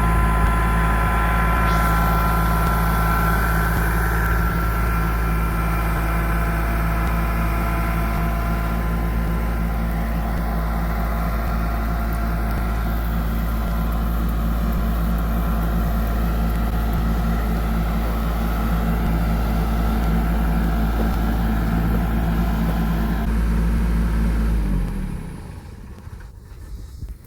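A vehicle engine running steadily, stopping abruptly near the end.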